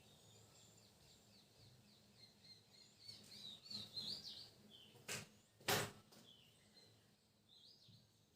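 Faint birds chirping in the background, repeated short calls throughout. Two short scrapes about five seconds in, the second louder.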